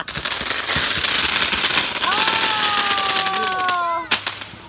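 Consumer fireworks crackling in a dense, rapid stream of pops for about four seconds, with a long, steady, slightly falling tone over them from about halfway through. A few sharp cracks come just after four seconds as it dies down.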